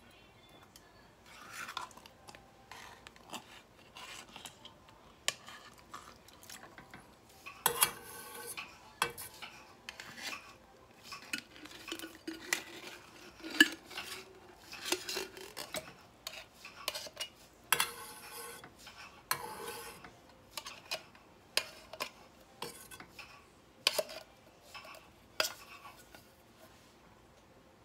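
Metal spoon and knife scraping thick refried beans out of a tin can into a stainless steel saucepan: irregular scrapes and clinks of metal on the can and the pan, several of them sharp and loud.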